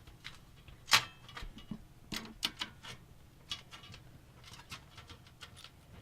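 Irregular clicks and taps of computer parts and cables being handled inside a small PC case, with a sharper knock about a second in.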